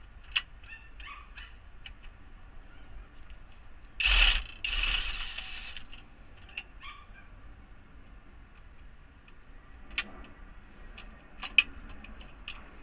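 Scattered clicks and clinks of hand tools and bolts on metal while a car's underbody plate is being unbolted. About four seconds in comes a louder harsh noise, roughly a second long with a short break.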